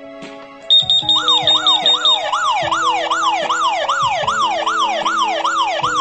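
SK030 smoke detector and its paired smart-home alarm panel set off by the detector's test button, a sign that the pairing works. A quick run of high-pitched beeps comes about a second in, then an alarm siren sweeping up and down about two and a half times a second. Background music plays underneath.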